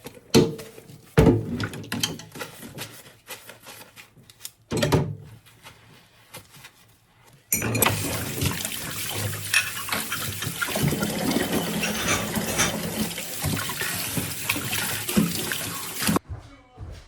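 Dishes and utensils clinking and knocking as they are handled at a kitchen sink. About seven seconds in, the tap is turned on and water runs steadily, splashing over the dishes, then it is shut off sharply near the end.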